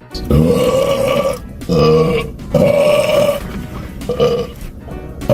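A man burping four times in a row: three long, drawn-out burps of up to about a second each, then a shorter one about four seconds in.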